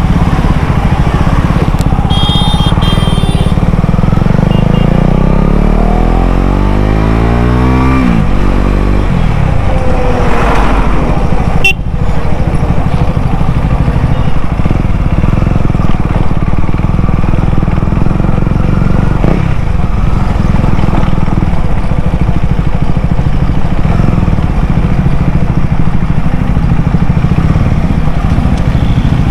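KTM Duke 250's single-cylinder engine running through an aftermarket exhaust, heard from the rider's seat while riding in traffic. It revs up through a gear, its pitch rising for a couple of seconds, drops sharply at a gear change about eight seconds in, then rises again briefly.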